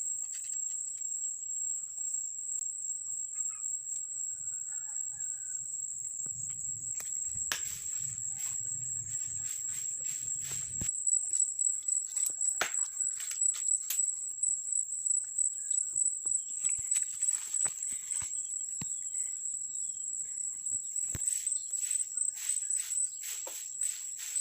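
Outdoor rural ambience: a steady high-pitched whine, faint chicken clucks, and scattered clicks and taps that come more often in the second half.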